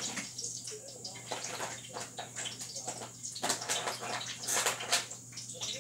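Hot frying grease crackling and hissing unevenly as it heats, with a few louder pops in the second half and a steady low hum underneath.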